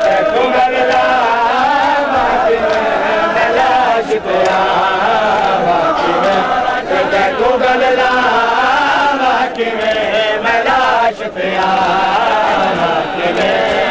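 Many men chanting together in a Muharram mourning chant, a continuous sung melody that rises and falls without pause.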